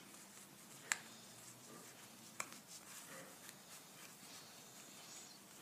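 Quiet room with a few faint taps and two sharp clicks, about a second in and again a second and a half later, as cardboard jigsaw puzzle pieces are handled and pressed into place.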